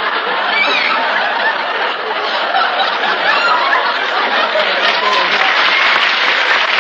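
Live studio audience laughing and applauding without a break, on a 1948 radio broadcast recording.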